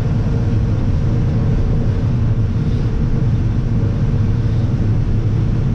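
Combine harvester running steadily while shelling corn: a constant low engine and machinery rumble with a steady hum above it.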